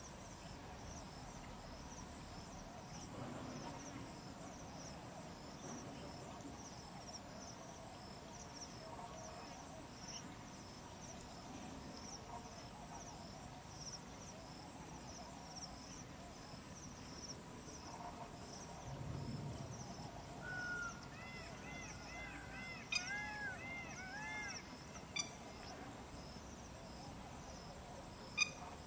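Outdoor natural ambience: an insect chirping in a steady, high-pitched pulsing rhythm, joined about two-thirds of the way through by a bird giving a run of short, looping call notes. A few sharp clicks sound near the end.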